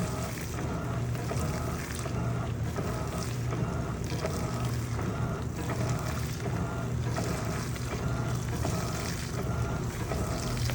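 Electrolux LPE16 washing machine working a wet comforter, its motor whine pulsing about every two-thirds of a second over a steady hum, with water sloshing.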